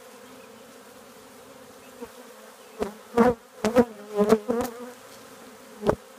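Swarm of honeybees at an open hive buzzing steadily in a low hum. A run of loud scrapes and knocks breaks in between about three and five seconds in, with one more near the end.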